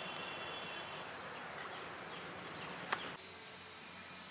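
Steady, high-pitched chirring of insects. About three seconds in there is a single sharp click, after which the background noise goes a little quieter.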